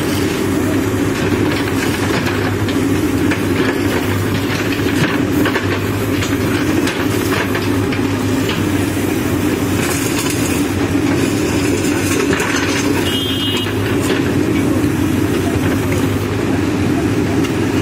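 Manitou backhoe loader's diesel engine running steadily as it digs, with scattered scrapes and clinks of gravel being moved.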